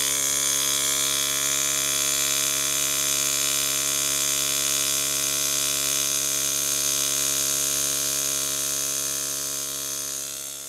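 Small portable electric tire compressor running steadily, pumping air through a hose into an underinflated motorcycle tire. The hum fades away near the end.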